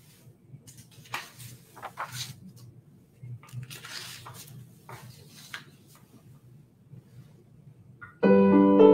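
Soft rustling and handling noises over a low hum, then near the end a piano starts playing chords, much louder.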